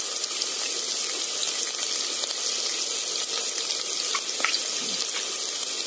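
Sliced onions sizzling steadily in hot oil in a large pot, with a few faint clicks of a spoon against a steel bowl in the second half.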